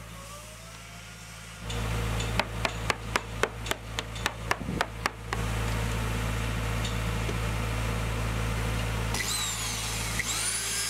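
Corded DeWalt electric drill starting up and boring into the fiberglass-skinned foam fairing of a sailboat keel. Over the first few seconds a quick run of about a dozen sharp knocks sounds over the drill, then it runs steadily, its whine gliding in pitch near the end.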